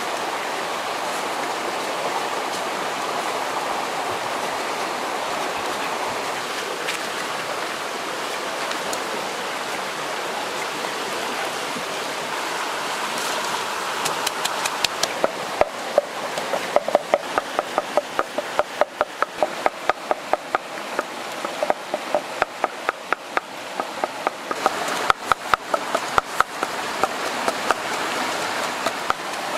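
A stream running steadily throughout. From about halfway in, a wooden pestle pounds chillies in a wooden mortar: a fast run of sharp wooden knocks, about three a second, with a few short pauses.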